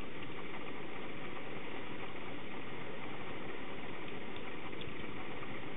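Steady, even background hiss with no distinct sound, broken only by a couple of faint ticks near the end.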